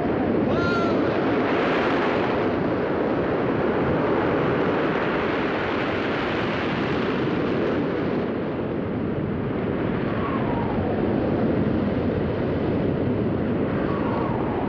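Heavy storm surf breaking over rocks in a steady, dense rush of noise. A few faint high calls sound over it, about a second in and again near ten seconds.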